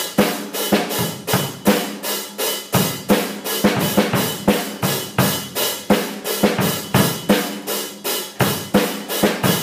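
A drum kit playing a steady, even beat of about four hits a second.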